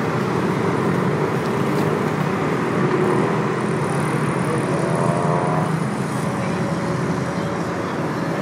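Steady dense road traffic on a multi-lane city avenue: the engines and tyres of passing vehicles blend into one continuous noise.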